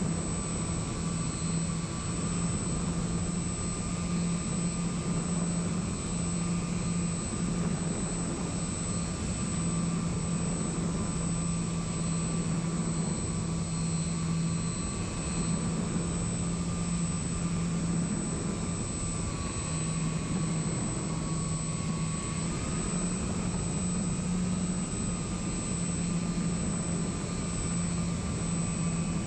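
Electric motor and propeller of a radio-controlled model plane heard from its onboard camera, running steadily under wind rush. A low hum drops in and out, and a thinner motor whine sags and comes back up about two-thirds of the way through as the throttle shifts.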